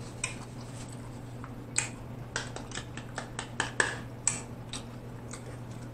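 Close-miked wet chewing and lip smacking on a mouthful of stuffed pizza: a run of short, sharp mouth clicks, thickest in the middle, over a steady low hum.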